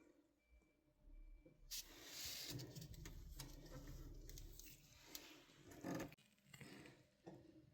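Faint handling noise: rustling with scattered light clicks, starting about two seconds in and with a sharper click near the end.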